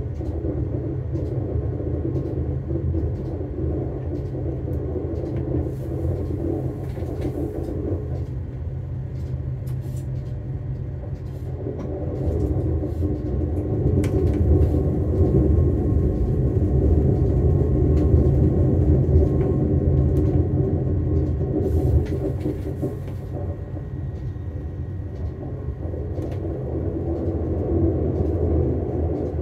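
Diesel passenger train running along the track: a steady low rumble with the engine's drone and occasional clicks. It grows louder for several seconds around the middle, then eases.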